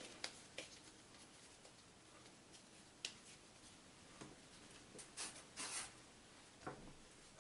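Faint rubbing and scuffing of hands shaping soft bread dough into small balls on a silicone baking mat, with a few brief scrapes and light taps, the loudest pair about five seconds in.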